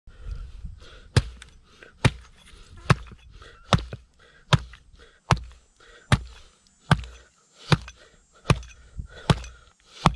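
Hatchet blows chopping through a snapping turtle's neck to cut off its head: about a dozen sharp, evenly spaced chops, roughly one every 0.8 seconds.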